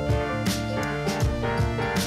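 Background music: an instrumental track with a steady beat.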